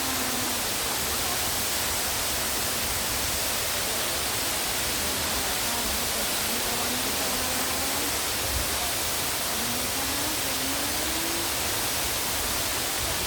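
Steady, even rush of a large waterfall close by, a dense wash of falling water and spray.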